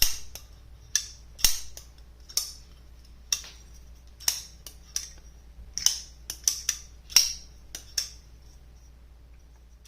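Sencut Serene button-lock folding knife on ceramic bearings being flicked open and shut over and over, each snap giving a sharp click with a metallic ring from its aluminum handle. About a dozen snaps at uneven intervals, several in quick succession around the middle, stopping about eight seconds in.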